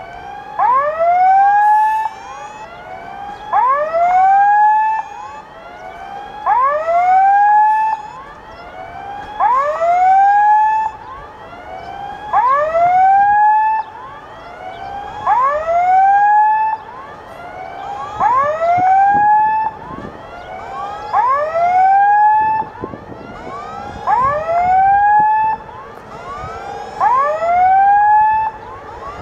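Railway level-crossing warning alarm sounding continuously: a short electronic tone that sweeps upward, repeating about once a second, with louder and fainter sounding groups alternating, as if two alarm units are out of step.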